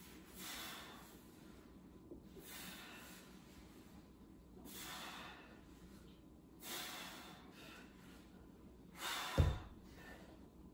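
A person's forceful exhales, five of them about every two seconds, breathing out hard with each leg lowered in a leg-lowering ab exercise to brace the ribs down. A thump comes with the last exhale near the end.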